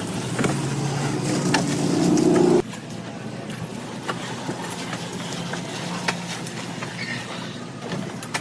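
A motor runs with a steady pitched hum that rises slightly, then cuts off abruptly about two and a half seconds in. Quieter noise with scattered clicks and knocks follows.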